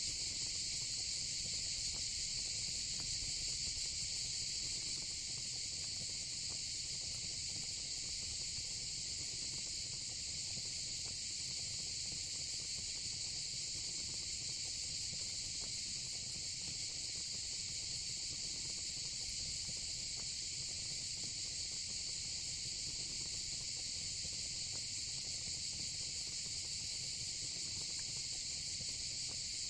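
Steady, unbroken chorus of crickets, high-pitched and even, with faint occasional crackles from a fire pit beneath it.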